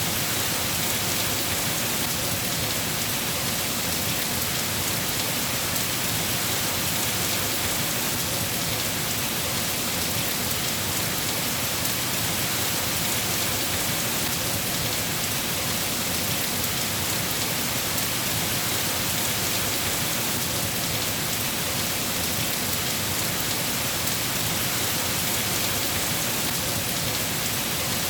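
Steady heavy rain falling, an even hiss of drops with no breaks or thunderclaps.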